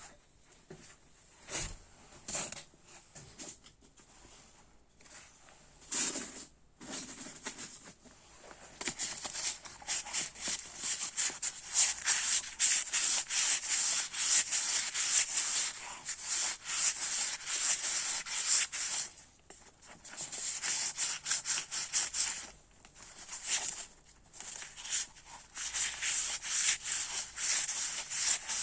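Hand sanding of a brake part with fine sandpaper: rapid back-and-forth rasping strokes that start about nine seconds in and stop briefly twice. A few scattered knocks of parts being handled come before it.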